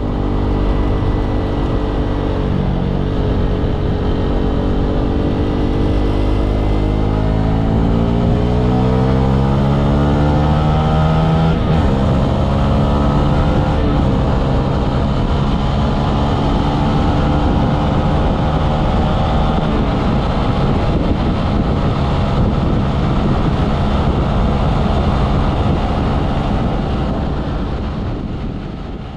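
Vehicle engine accelerating, its pitch rising steadily for several seconds, then running on steadily at speed with a dense rumble of road and wind noise. It is heard through an action camera's built-in microphone.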